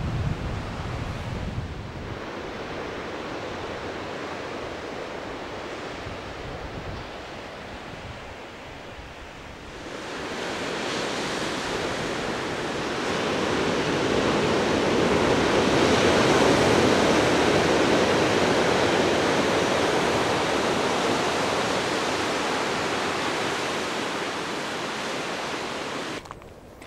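Sea surf breaking on the rocks below the cliffs: a steady rush of waves that swells up about ten seconds in and stays loud. In the first couple of seconds wind buffets the microphone.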